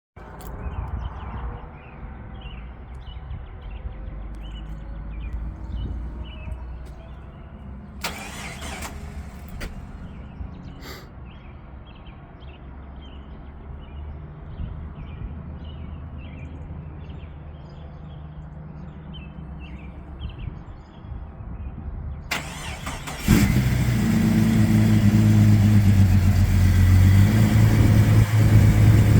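A 1999 Jeep XJ Cherokee engine being started cold. A low rumble is heard for about twenty seconds, then the engine catches about 23 seconds in and runs loudly and steadily at idle. This is the cold-start noise the owner presents as piston slap.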